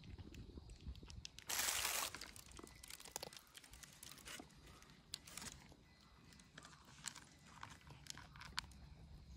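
A cat chewing food from a bowl: faint, scattered crunching clicks. A short, louder rustling noise comes about one and a half seconds in.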